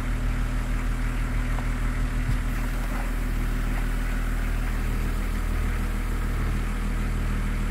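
Range Rover P38 engine idling steadily. About two and a half seconds in, a click is followed by a faint steady hiss: the air suspension venting air as the car lowers.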